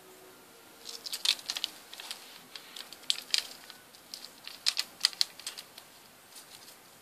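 Light pattering clicks and taps of a small white dwarf hamster scrabbling over newspaper and plastic toys. They come in short clusters of sharp ticks, starting about a second in, with busier patches around three seconds and near five seconds.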